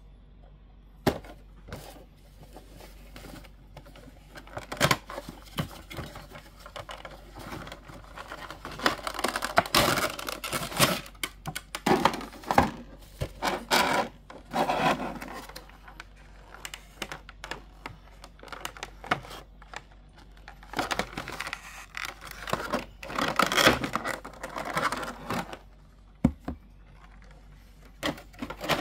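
A Funko Pop vinyl figure being unpacked by hand: its cardboard box handled and opened, and its clear plastic packaging crinkling, with sharp clicks and taps. The handling comes in bursts with quiet gaps between.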